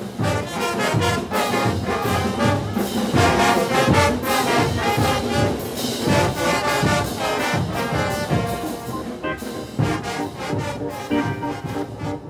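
A brass band playing lively festival music over a steady drum beat.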